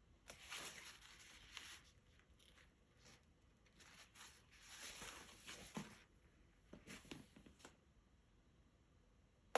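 Faint dry scratching strokes of a paintbrush working over watercolour paper, in three bouts with short pauses between them.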